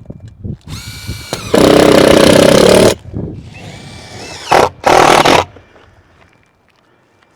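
Handheld power drill running in two loud bursts, the first about a second and a half long and the second about a second, with a shorter, quieter spin just before the first.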